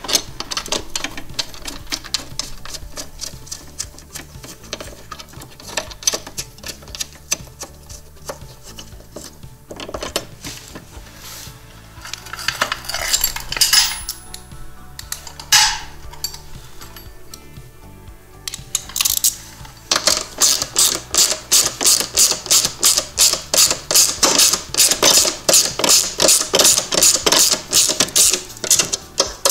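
Socket ratchet clicking in a fast, even run of about four or five clicks a second through the last third, as a bolt is worked in; before that, scattered clinks of tools and metal parts.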